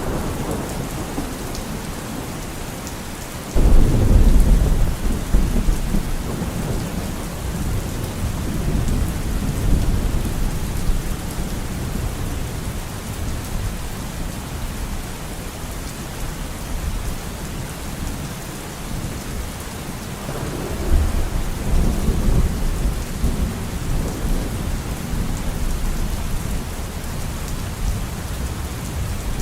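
Steady rain falling, with two rolls of thunder: a loud one that breaks in suddenly near the start and rumbles away over several seconds, and a softer one past the middle.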